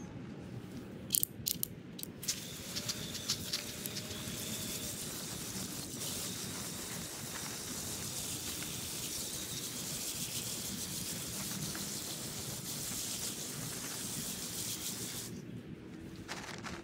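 Garden hose spray nozzle spraying water onto peppers on a wire-mesh screen: a steady hiss that starts about two seconds in and cuts off shortly before the end. A few sharp clicks come just before the spray starts.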